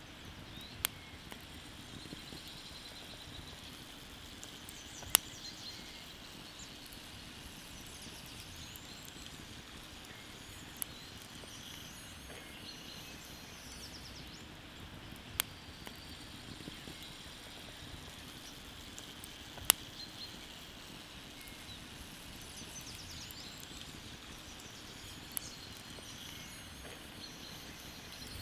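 Wood embers burning under a spit, with a sharp single pop from the fire every few seconds, six in all, over a steady quiet outdoor hiss. Faint bird chirps come through twice.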